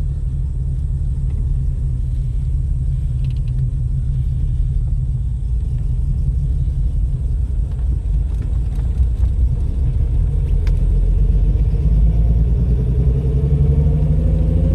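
Holden VK Commodore's 202 straight-six engine running, revived after eight years of sitting: a steady low rumble that grows louder and rises in pitch over the last few seconds.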